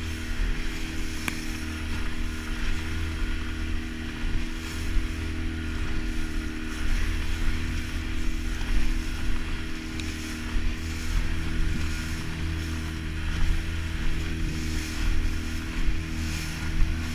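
Outboard motor running steadily at speed while an inflatable boat's hull slaps across choppy waves, with wind rushing over the microphone.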